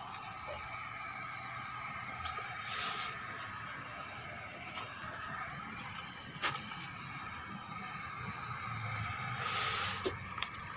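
Wet, squelching rustle of salted raw sea cucumbers being stirred by hand in a plastic crate, over a steady hiss, with two brief swells of rustling and a couple of soft clicks.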